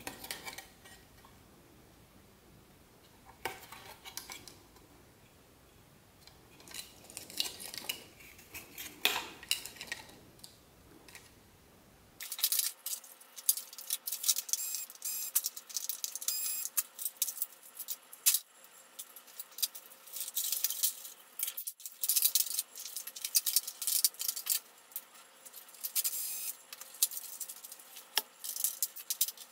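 Hard plastic and metal parts of a Brother inkjet printer/scanner clicking and clinking as they are handled and pulled apart. Sparse clicks and rattles at first; from about twelve seconds in, a dense, rapid run of clinks and clicks.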